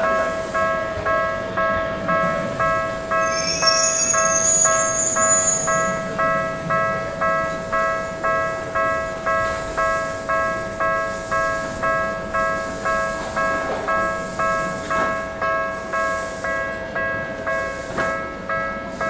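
Electronic level-crossing warning bell on the Tokyu Ikegami Line ringing in an even, repeating ding a little under twice a second, with a steady tone underneath. A passing train is heard with it, including a high squeal from about three and a half to six seconds in.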